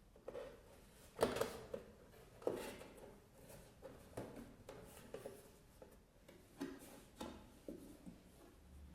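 Cardboard box sheet being folded and creased by hand: irregular crackles, rustles and taps, loudest about a second in and again at two and a half seconds.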